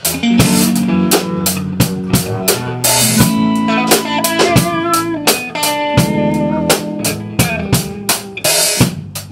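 Live band jamming: a drum kit keeps a steady beat of about four hits a second under electric guitar and low bass notes.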